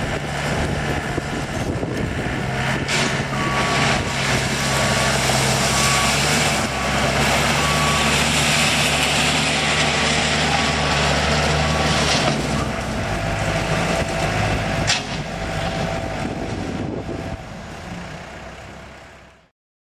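Komatsu SK1020 skid steer loader's engine running under work, with a reversing alarm beeping at a steady pace for several seconds. The sound fades out near the end.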